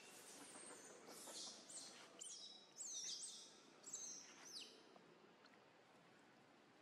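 Faint, short high-pitched chirping calls in quick succession, each falling steeply in pitch, from about a second in until nearly five seconds in, over a soft outdoor hiss.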